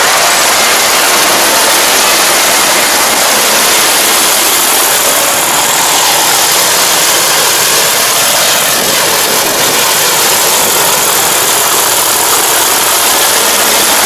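Iseki Japan 4075 rice combine harvester running as it cuts and threshes standing rice. Its engine and machinery make a loud, steady din.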